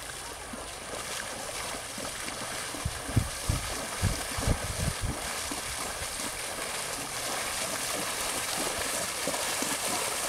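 A horse wading through shallow pond water, its legs splashing steadily and growing louder as it comes closer. A handful of low thumps about three to five seconds in.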